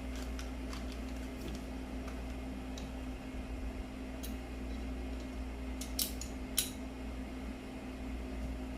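Light clicks and taps of stand parts being handled as the pole is screwed into the base, with two sharper clicks about six seconds in, over a steady low hum.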